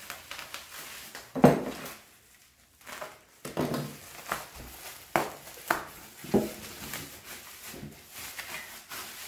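Bubble wrap and plastic packing being pulled and crinkled by hand in irregular rustles and crackles, with a loud knock about one and a half seconds in and a short lull before the crinkling resumes.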